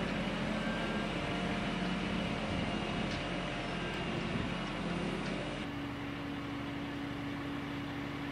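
Truck-mounted mobile crane's diesel engine running steadily, a constant mechanical drone that changes abruptly about five and a half seconds in.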